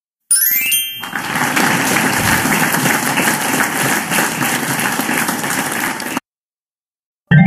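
Correct-answer sound effect from the quiz software: a short chime, then recorded applause that cuts off suddenly after about five seconds.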